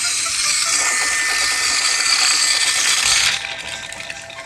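Small electric motor and gearbox of a battery-powered Tomy toy train running with a steady whirring, gear-grinding noise that cuts off suddenly about three seconds in.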